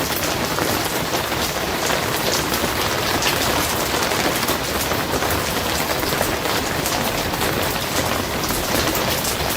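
Steady rain drumming on a barn roof, a dense continuous patter of many drop strikes with no let-up.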